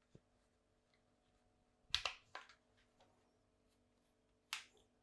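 Sharp clicks of small fermenter fittings being handled while a seal is fitted: one about two seconds in with a smaller one just after, and another near the end.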